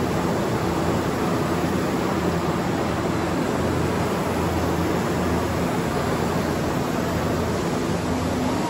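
Steady industrial noise of tobacco factory machinery running: an even, loud rushing noise with a faint low hum underneath.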